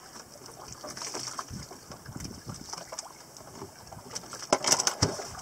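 Sea water lapping against the wooden hull and bamboo outrigger of a small outrigger fishing boat, with a steady hiss of wind. Small knocks throughout and a louder burst of knocks about four and a half seconds in.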